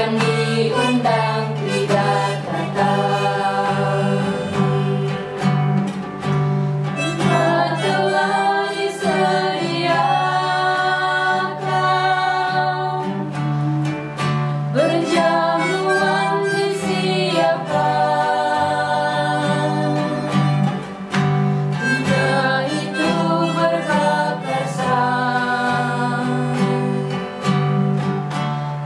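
A small group of women singing a hymn together, accompanied by an acoustic guitar.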